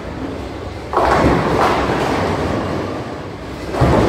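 Bowling ball hitting the pins about a second in, the pins crashing and clattering for a couple of seconds, over the steady rumble of balls rolling in a bowling alley. Another sudden crash comes near the end.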